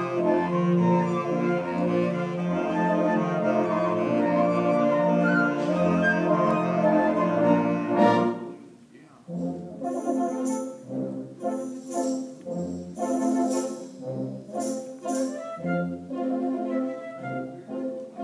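Instrumental ensemble music with brass: a full, sustained passage that breaks off about eight seconds in, followed by a lighter, clipped passage with low notes on the beat and quick high figures above.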